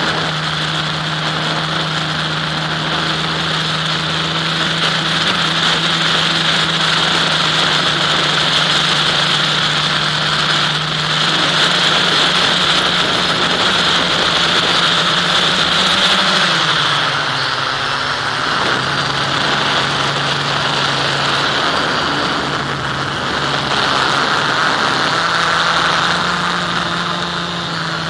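FPV aircraft's motor and propeller running steadily, heard from the onboard camera as a hum with rushing wind. The pitch drops about two-thirds of the way through as the throttle eases, then rises again near the end.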